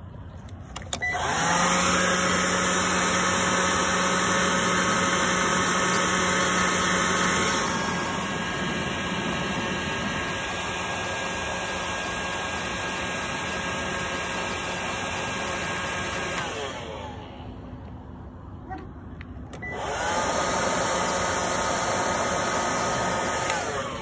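Electric leaf blower spinning up to full speed with a steady whine, dropping to a slightly lower speed about eight seconds in, then winding down and stopping around seventeen seconds. It spins up again about twenty seconds in and winds down near the end. It is blowing road-flare smoke down a gopher burrow.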